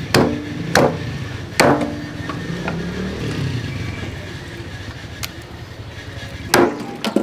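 Heavy knife chopping a dressed rabbit carcass into pieces on a thick wooden chopping block: sharp knocks, three in the first two seconds, a pause with a couple of light taps, then two more near the end.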